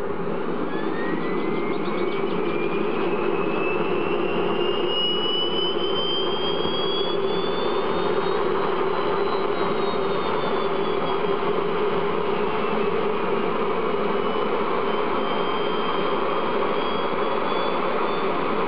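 Armfield CM14 small aeronautical axial-flow gas turbine running with a steady rushing roar. A high whine climbs in pitch over the first eight seconds or so, while a second, higher whine sinks and then climbs again.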